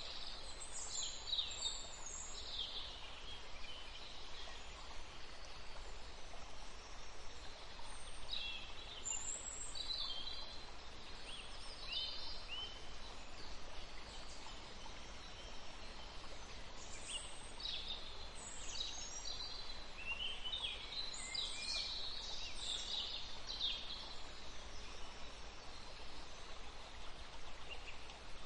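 Small birds chirping and twittering in short flurries that come and go every few seconds, over a steady faint hiss.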